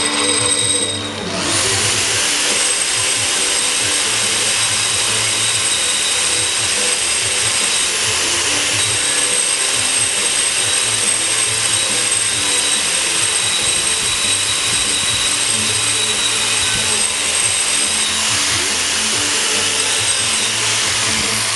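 Variable-speed angle grinder with a diamond cup wheel grinding down the edge of cured concrete: a dense, steady grinding noise with a high motor whine. The grinding noise rises sharply about a second in.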